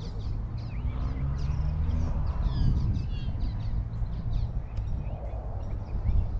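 Many small birds chirping and calling in quick short notes, over a strong, uneven low rumble.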